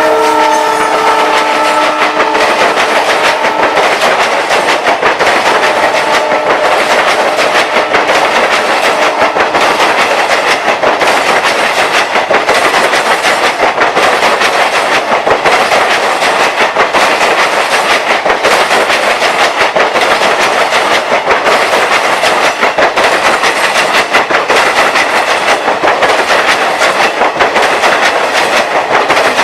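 An express train passing at speed. The WDG-4 diesel locomotive's horn dies away within the first two seconds, then the coaches go by with a loud, steady rush and a rhythmic clickety-clack of wheels over the rail joints.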